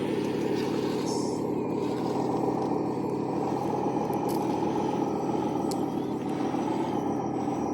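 Radio-controlled construction machine models running steadily, with their electric drive motors and hydraulic pumps whirring, and a couple of faint ticks.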